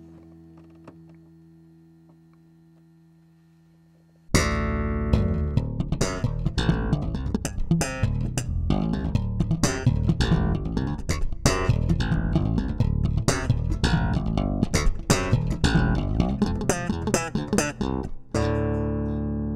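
The last notes of a 1964 Gibson J200 acoustic guitar fade away; about four seconds in, an electric bass guitar (Yamaha with Human Bass Electronics) starts a busy run of sharply plucked notes, recorded dry with no compression. The run stops shortly before the end, and another held bass passage begins.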